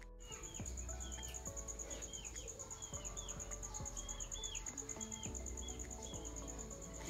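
Soft background music, its notes changing every half second or so, over a steady high cricket-like trill and short repeated bird-like chirps.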